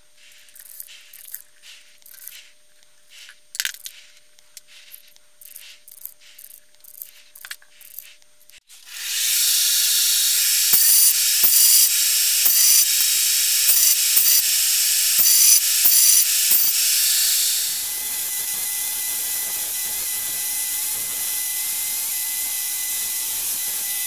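A belt grinder starts about a third of the way in and runs steadily, loud, with the knife handle pressed against the moving abrasive belt to sand it down. A little past halfway the sound drops slightly and changes as the grinding goes on. Before it starts there are only faint, scattered ticks of hand work on the handle.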